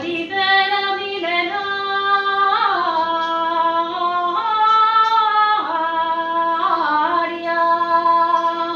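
A woman singing a slow melody in long held notes, sliding from one pitch to the next.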